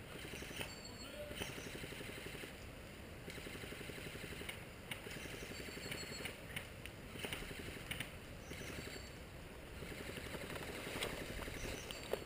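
Footsteps and the rustle of clothing and gear as someone moves outdoors, with a few short bird chirps high above.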